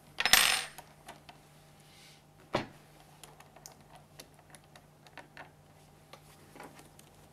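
Hands handling a plastic chemical injection pump on a bench: a loud clatter near the start as an Allen key is put down, a sharp knock about two and a half seconds in, then small scattered clicks as the pump head is worked loose.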